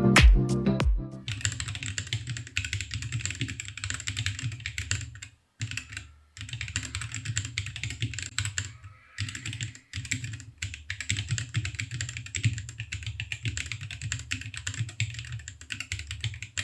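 Fast typing on a Sofle split mechanical keyboard with Leobog Graywood V4 linear switches and XDA keycaps: a dense run of keystrokes broken by a few short pauses. Intro music ends about a second in.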